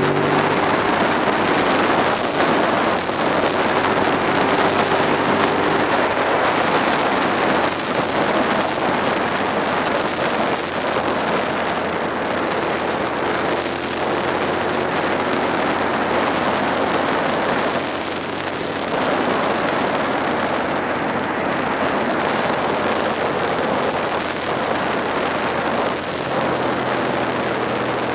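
Steady wind rush over the microphone of a Suzuki SV650 at road speed, with the bike's V-twin engine note faintly beneath it, clearest at the start and again near the end.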